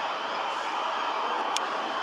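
Steady traffic noise of police cars driving through a town junction, with no clear siren. A single short click about one and a half seconds in.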